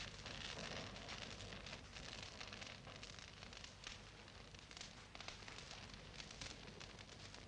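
Faint crackling of a wood fire in a fireplace: a soft hiss with scattered small pops and snaps.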